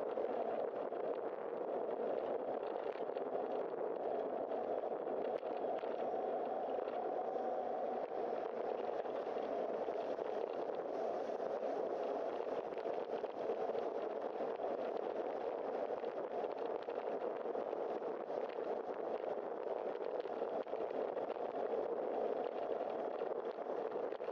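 Steady, muffled rushing noise of a bicycle ride on a wet street: wind and tyre noise picked up by a bike-mounted camera.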